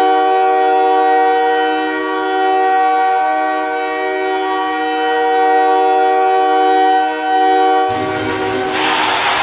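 Hockey goal horn sounding one long, steady multi-note chord, like a train horn. About eight seconds in, a loud wash of noise joins it.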